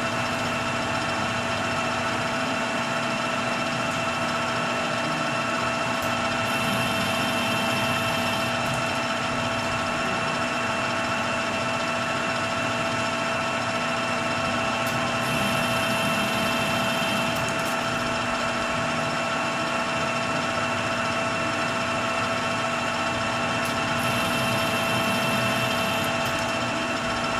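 Metal lathe running steadily, its motor and gears giving a whine of several steady tones, while single-point threading a rifle barrel's muzzle 1/2-28. A faint high whistle joins three times for a couple of seconds each.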